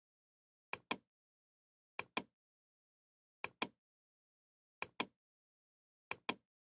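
Computer mouse button clicks in pairs, each a sharp press and release about a fifth of a second apart, a pair every second or so, with silence between.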